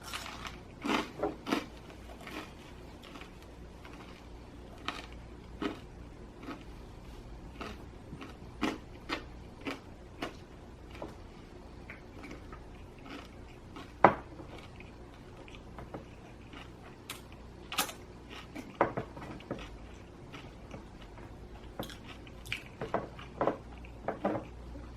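Close-up chewing and biting of pizza with ranch: scattered soft crunches and mouth clicks, with one sharp knock about halfway through.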